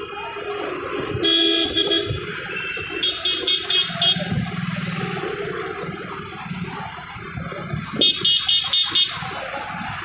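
Vehicle horns honking in dense city traffic: one honk about a second in, then bursts of quick repeated beeps around three seconds in and again near the end. Under them runs the steady rumble of motorcycle engines and road noise.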